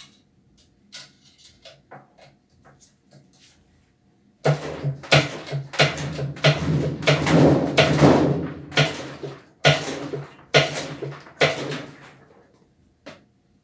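A few light clicks, then an irregular run of loud knocks and clatter from parts being handled and struck while a Brastemp Clean washing machine is taken apart. One last knock comes near the end.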